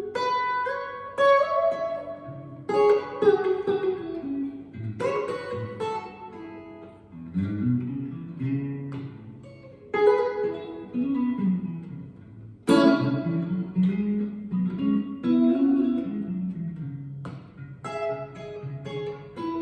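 Clean electric guitar with single-coil pickups playing melodic phrases of plucked single notes and chords.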